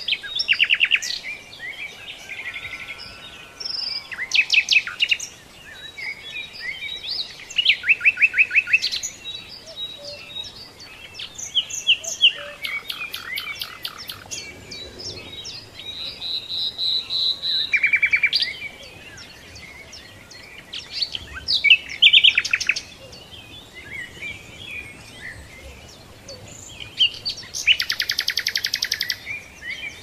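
Songbirds singing: loud trilled phrases of rapid repeated notes every few seconds, over softer chirping in between.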